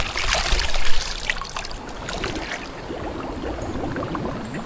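Forest stream flowing: a steady rush of water with scattered small clicks and rustles, louder for about the first second.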